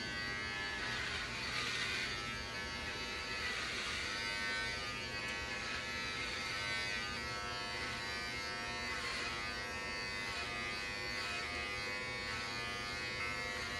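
Corded electric hair clippers buzzing steadily as they are run over a man's scalp, shaving his head.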